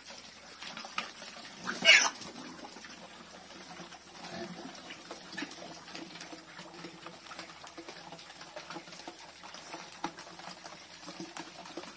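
Pigs eating wet mash of pig feed, rice bran and corn from a tyre trough, with steady slurping and chewing. About two seconds in, one pig gives a single short, sharp squeal as the pigs bite each other at the trough.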